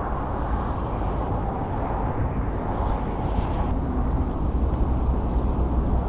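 Steady low rumbling outdoor noise that rises and falls a little, with no distinct event standing out.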